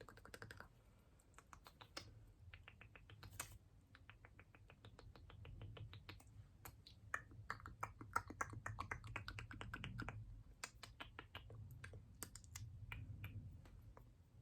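ASMR mouth sounds: soft, close-miked mouth clicks coming in quick runs of several a second, densest in the second half.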